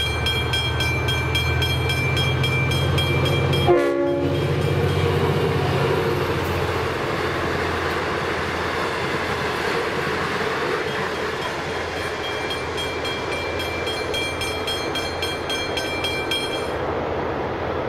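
A Westinghouse hybrid level-crossing bell rings with a rapid, steady pulse as a V/Line passenger train passes. About four seconds in there is a short horn toot, followed by a steady rush of wheel and carriage noise over a low diesel hum. The bell cuts off near the end.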